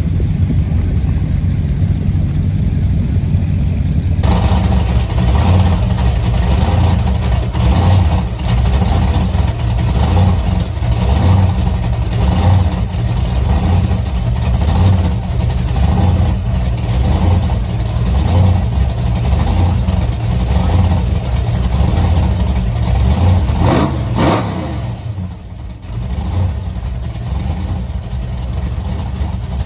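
Hot-rod engine sound: first a roadster's engine running as it rolls by, then, after a cut, an engine idling with an even, pulsing lope. Near the end there is a sharp crack, followed by a short lull.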